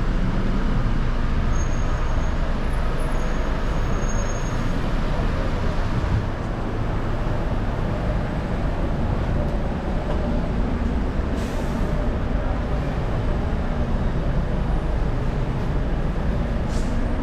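Busy street traffic: a steady low rumble of passing vehicles' engines and tyres, with a short hiss about eleven seconds in and another near the end.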